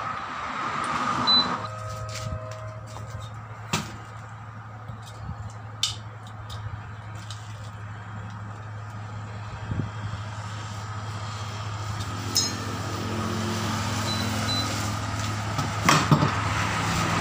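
Steady low hum with scattered sharp clicks and knocks as a motorcycle wheel and its tyre are handled and worked on the rim by hand; the loudest knock comes near the end.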